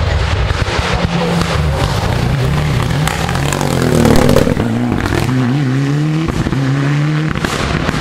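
Ford Escort RS Cosworth rally car's turbocharged four-cylinder engine at full throttle as it approaches and passes close by, loudest about four seconds in. It then accelerates away, its pitch climbing and breaking off several times as it changes up through the gears.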